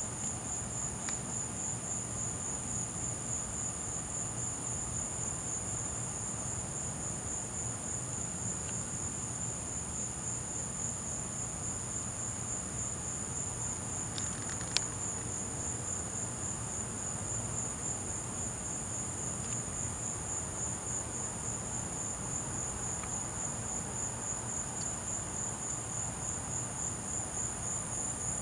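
Crickets chirping in a steady high-pitched chorus, two continuous trills at slightly different pitches. One brief click about halfway through.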